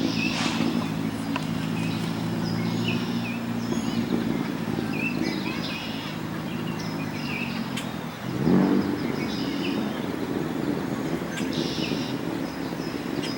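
Steady low hum of motor traffic, swelling briefly about eight and a half seconds in, with short high bird chirps scattered over it.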